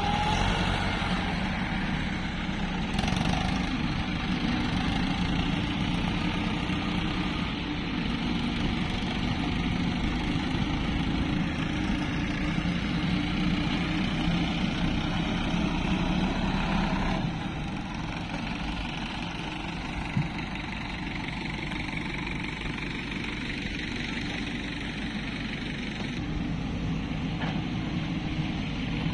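Diesel engines of Mahindra and Sonalika farm tractors and a hydraulic excavator running steadily as the tractors haul loaded trolleys. The engine sound changes abruptly and grows quieter about 17 seconds in.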